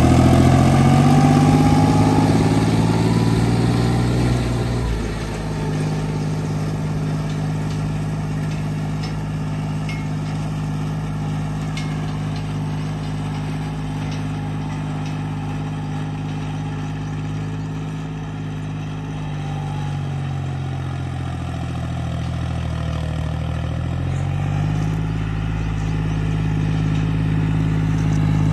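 John Deere tractor's diesel engine pulling a disc harrow through dry stubble. The revs climb as it pulls away, hold steady under load, drop off about twenty seconds in, then pick up again near the end.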